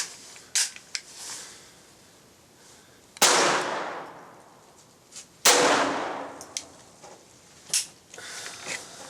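Two .22 LR pistol shots, about two seconds apart, from a Glock fitted with a Tactical Solutions rimfire conversion upper. Each shot has a long echoing tail, and there are a few light clicks from handling the pistol.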